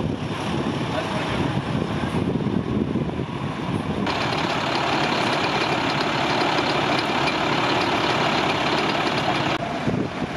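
Fire engines running at idle, giving a steady heavy engine rumble. About four seconds in, the sound turns abruptly hissier, and it changes again near the end.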